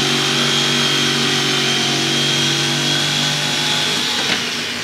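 Corded electric saw cutting through a wooden board, its motor running at a steady pitch with a high whine. The sound falls off about four seconds in.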